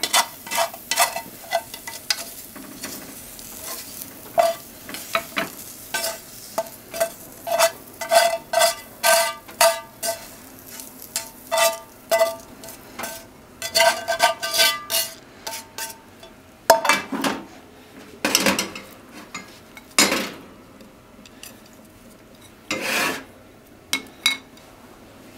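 Wooden chopsticks tapping and scraping against a nonstick frying pan as stir-fried potatoes and onions are pushed out into a bowl, one or two taps a second, the pan ringing faintly with each. Near the end come a few longer scrapes.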